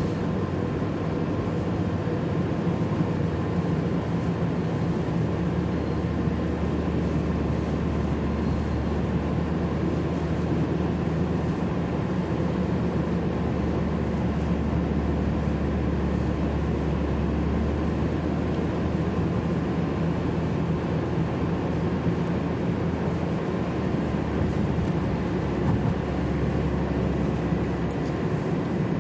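Steady low hum of a car running, heard from inside the cabin: engine and road noise at an even level.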